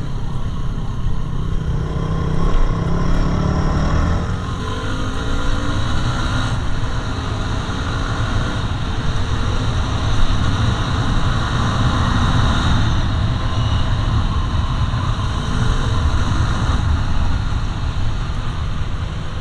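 Yamaha WR250R dual-sport motorcycle under way: its single-cylinder engine running over a steady low rumble, its pitch climbing over the first few seconds.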